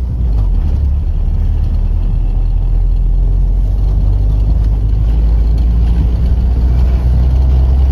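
Steady low rumble of a car's engine and tyres heard from inside the cabin as it drives slowly along a road.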